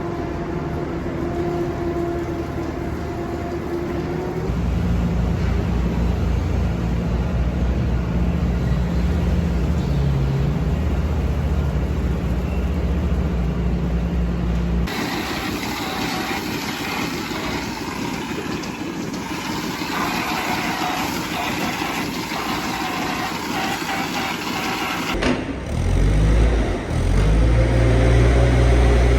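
Engine of farm machinery running steadily, with abrupt changes in sound about 4 s in, halfway through and near the end, where it runs louder.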